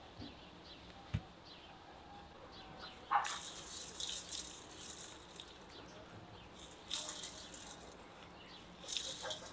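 Salt sprinkled by hand over raw potatoes and vegetables in an enamel basin: three spells of light hissing patter as the grains fall, about three, seven and nine seconds in.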